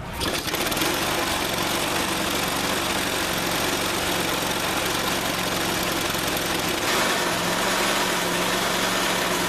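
Honda Harmony II HRR216 lawn mower's single-cylinder four-stroke engine starting right at the outset and then running steadily, its pitch shifting slightly about seven seconds in. It fires after a new spark plug has been fitted, meant to cure its refusal to start.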